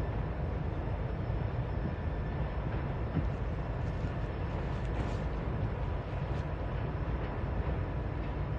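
Freight train of autorack cars rolling steadily over a steel truss bridge: a continuous low rumble of wheels and car bodies, with a few light clicks around the middle.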